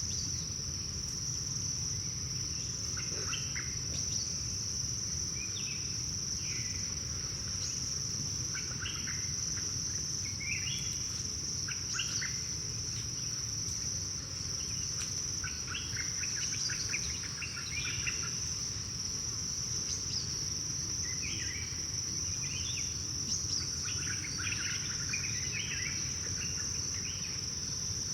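Tropical forest ambience: a steady high-pitched insect chorus runs without a break, with scattered bursts of short bird chirps over it, busiest in the second half, and a low steady rumble underneath.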